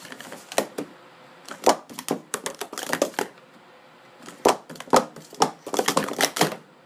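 Pro Series 2 plastic sport-stacking cups clacking against each other and the mat in quick flurries of sharp clicks as they are upstacked and downstacked at speed.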